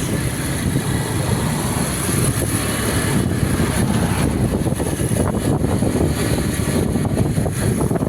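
A heavy vehicle's engine running with a steady, rough rumble; no horn sounds.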